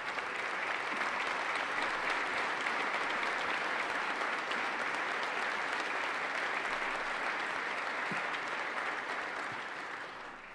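A chamber full of legislators and guests applauding, a steady dense clapping that swells up at the start and dies away near the end.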